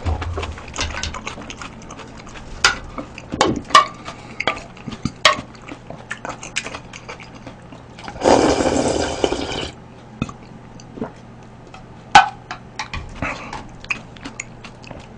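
A spoon clinking and scraping against a ceramic bowl while eating. About eight seconds in comes a loud slurp of about a second and a half as soup broth is drunk straight from the tipped-up bowl.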